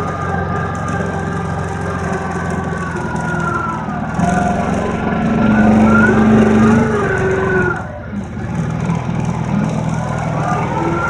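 ATV engine running while riding over snow, its pitch rising and falling with the throttle, over a steady rush of noise. It dips briefly about eight seconds in, then picks up again.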